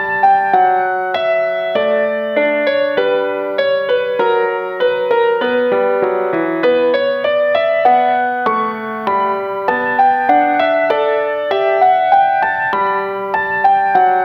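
Background piano music: a melody of single notes struck a few times a second over held lower notes.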